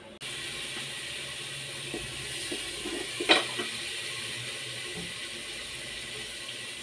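Tap water running steadily into a stainless-steel kitchen sink, with one sharp knock about three seconds in.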